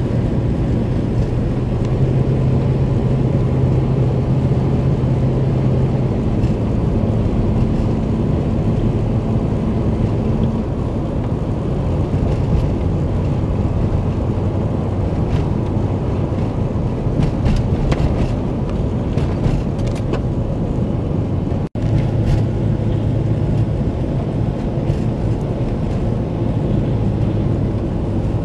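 Steady drive-by road noise of a vehicle travelling on a snow-covered highway: a continuous low engine and tyre drone with a steady hum that shifts pitch a few times, some light clicks, and a momentary dropout about 21 seconds in.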